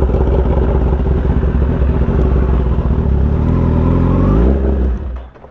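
Kawasaki ZX-10R's inline-four engine running at low revs, rising briefly in pitch about three and a half seconds in, then cutting off about five seconds in as the engine is switched off.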